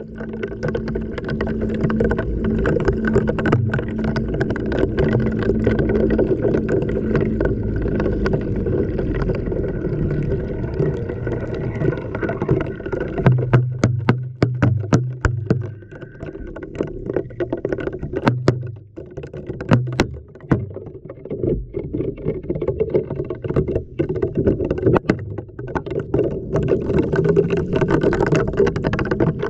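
Recorded from inside a washing machine drum during a wash: water sloshing as the drum turns, with a low motor hum that comes and goes, and frequent sharp knocks of glow sticks and the camera housing hitting the drum.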